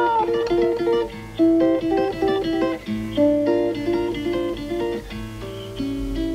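Instrumental music: a lively tune of short picked notes on plucked strings over steady bass notes, the instrumental introduction to a children's song.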